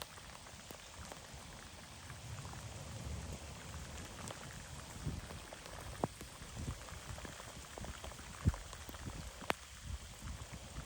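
Rain falling, with individual drops tapping close by at irregular intervals; a few sharper single taps near the end.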